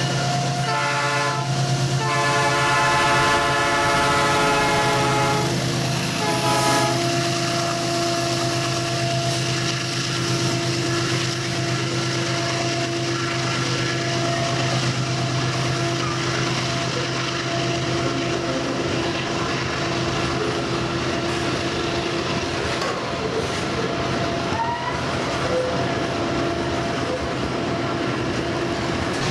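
Diesel freight locomotive's air horn sounding several blasts in the first seven seconds, one of them long. Then the locomotives' diesel engines drone steadily while the loaded hopper and tank cars roll past with wheel clatter on the rails.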